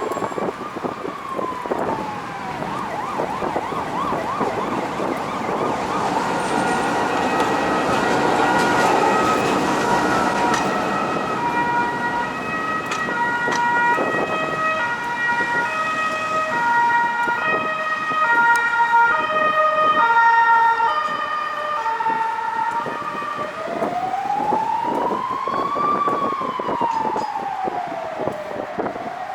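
Emergency vehicle siren wailing in slow rises and falls over street traffic. In the middle it gives way to a run of short, stepped tones at changing pitches before the wail returns near the end.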